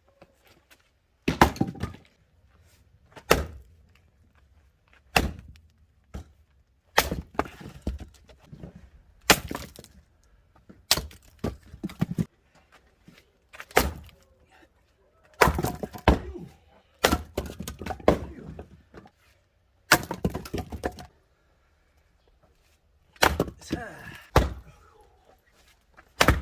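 Oak logs being split by hand with an axe: sharp blows of the blade into the wood, about one every two seconds. Many blows are followed by smaller knocks as the split pieces fall.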